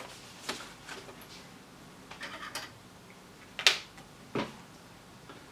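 Handling noises on a workbench: scattered light clicks and taps of small items being picked up and set down, the loudest a sharp click a little past halfway.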